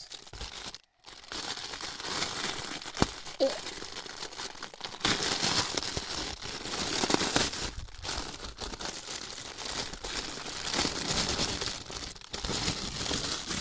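Packaging crinkling and rustling in continuous bursts as a pack of cat masks is opened and the masks are pulled out.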